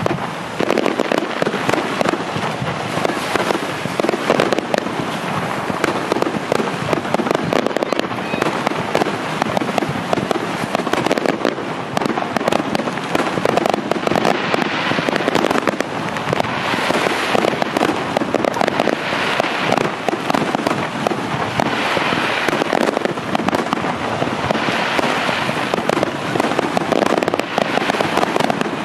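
Aerial fireworks display: a dense, unbroken barrage of shell bursts, bangs and crackling.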